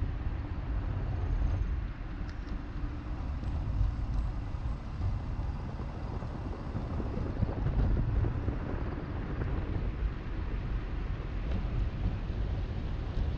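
Car driving along a road: steady low rumble of wind noise on the microphone mixed with tyre and road noise.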